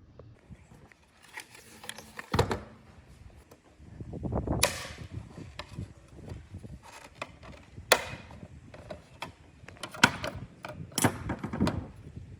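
Irregular clicks, knocks and scraping from a robot vacuum's parts being handled and worked on during repair, with a few sharper knocks among them.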